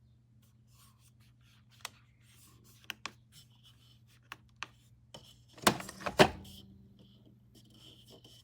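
Light clicks and taps of something being handled, with two louder knocks close together about six seconds in, over a faint steady hum.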